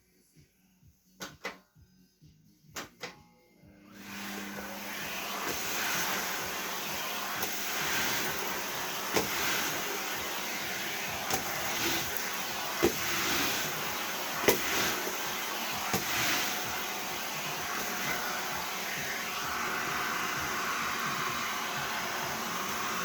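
A few sharp clicks, then a vacuum cleaner starts up about four seconds in and runs steadily, with several sharp knocks over its noise.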